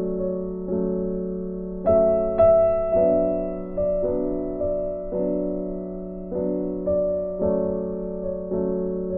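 Soft background piano music: chords struck every half second to a second, each note fading away.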